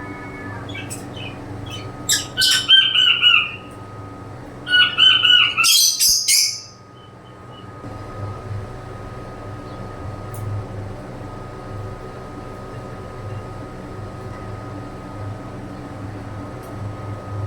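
Birds chirping and squawking in two loud bursts of rapid repeated calls, about two and about five seconds in, then falling quiet, over a steady mechanical hum.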